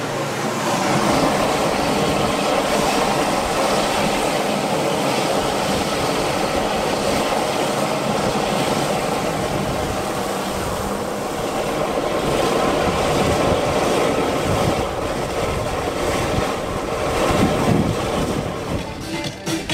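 Man-made geyser erupting: a steady rush of water jetting up and falling back as spray.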